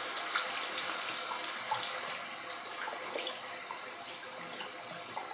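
Hot water running from a bathroom tap into the sink while a shaving brush is rinsed under the stream, with small splashes as the lather is washed out. The running water gets quieter about two seconds in.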